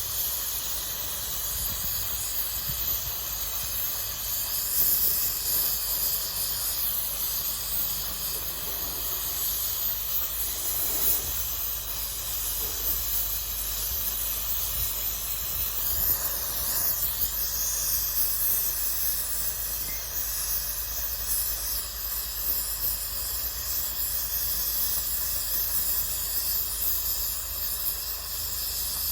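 Gas welding torch flame hissing steadily while welding shut a hole in a motorcycle crankcase.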